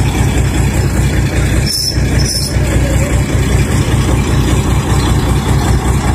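Diesel engine of a tipper truck running steadily with a deep, loud rumble while the truck sits stuck in mud with its bed raised.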